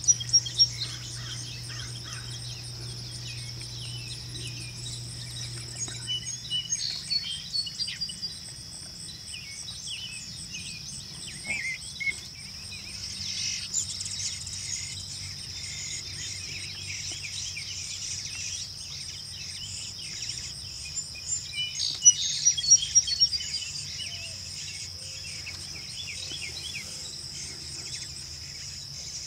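Summer outdoor ambience: a steady, high-pitched drone of insects runs throughout. Short bird chirps come in scattered clusters, loudest about two-thirds of the way through.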